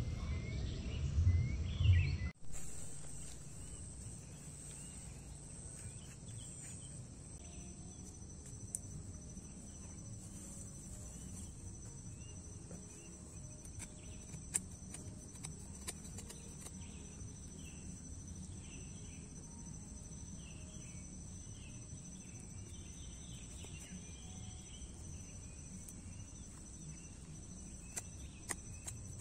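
Steady high-pitched insect chorus with many short bird chirps scattered through it and a few faint sharp clicks. For the first two seconds a louder low rumble runs under it, then cuts off abruptly.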